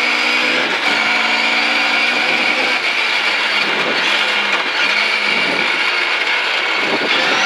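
Rally car engine running hard and steadily under load, heard from inside the cockpit, with loud road and mechanical noise throughout.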